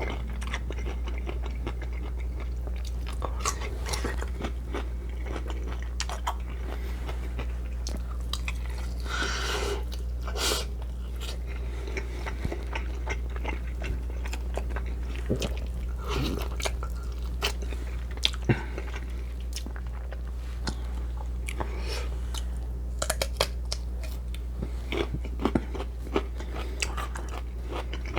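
Close-miked chewing and crunching of food, with sharp crunchy bites scattered throughout and more of them near the end.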